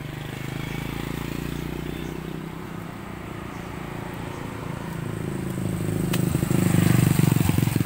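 A small engine running steadily with a fast, even pulse, growing louder over the last few seconds. A single sharp click about six seconds in.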